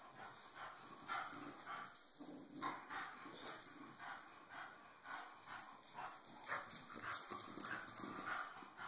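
English bulldogs' claws and paws clicking faintly and irregularly on a tile floor as they walk and circle each other.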